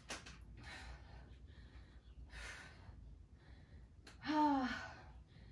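A woman breathing hard under exertion during a strength set: short breathy exhales, then a louder sighing exhale with her voice in it a little past four seconds.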